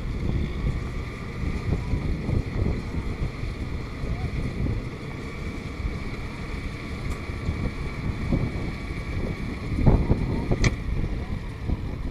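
Kubota M6040SU diesel tractor running steadily under load while driving a round straw baler, with wind buffeting the microphone. A sharp click comes near the end.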